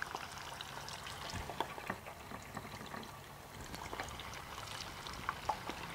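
Hot oil in a countertop deep fryer sizzling with many small irregular crackles as raw fish cakes are lowered into it to fry.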